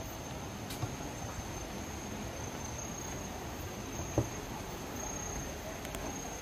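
Insects droning steadily, a thin high-pitched tone over an even hiss, with a soft thump about four seconds in.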